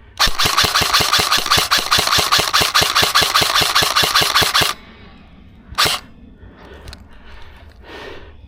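Airsoft gun firing one long full-auto burst of about four and a half seconds, roughly nine shots a second, followed about a second later by a single sharp shot.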